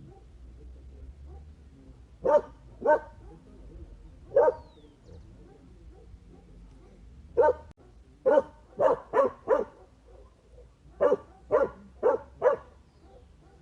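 A dog barking: about a dozen short, separate barks, a few spaced out at first, then in quick runs of three or four.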